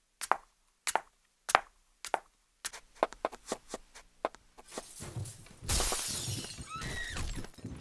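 Thuds and bangs of a violent fight next door: single blows at first, then a quick flurry of knocks, then a louder crash with something breaking about six seconds in.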